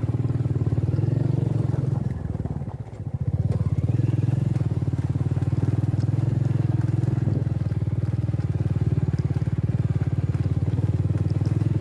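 Motorcycle engine running at low speed with a steady, even pulse as the bike rides over a rocky dirt track. The engine note drops away briefly about two to three seconds in, then picks up again.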